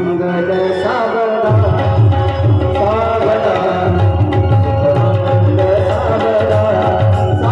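Tabla drumming under a gliding melody in live devotional wedding music; the tabla beat comes in about a second and a half in.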